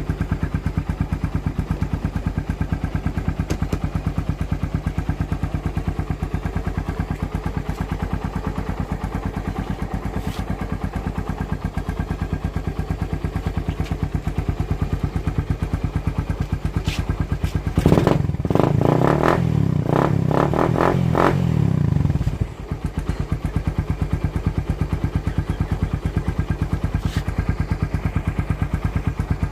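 Suzuki Raider 150 single-cylinder four-stroke engine idling steadily through an aftermarket Exos R6 canister exhaust. A little past halfway the throttle is blipped several times over about four seconds, then the engine drops back to idle.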